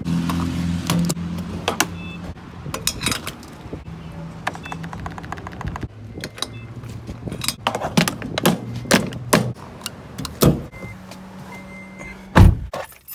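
Refuelling a car at a gas pump: a steady low hum under a series of clicks and clunks as the fuel cap comes off and the pump nozzle is handled at the filler, then a car door shuts with a loud thump near the end.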